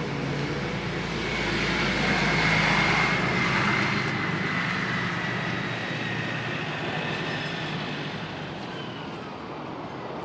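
A passing engine: a low hum under a rushing noise that swells to its loudest about two to three seconds in, then slowly fades away.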